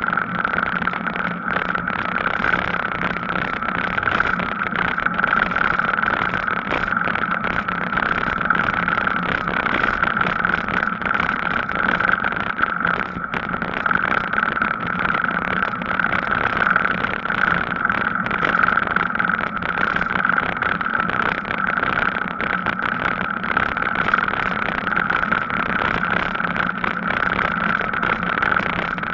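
Steady rushing noise of an e-bike on the move, with a constant high hum and a fainter low hum running under it.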